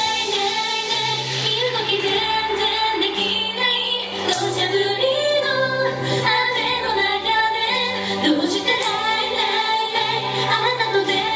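Pop song with a woman singing over band accompaniment, with a held bass line and occasional cymbal strokes.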